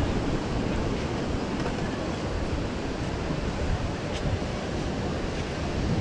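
Steady wash of ocean surf with wind, the wind buffeting the microphone as a low, uneven rumble.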